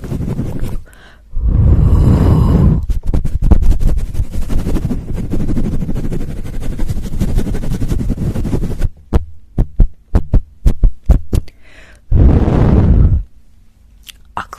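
Close-miked ASMR trigger sounds: a dense, bassy rubbing and scratching against the microphone for several seconds, then a run of quick separate taps, about four a second, and a short burst of rubbing near the end.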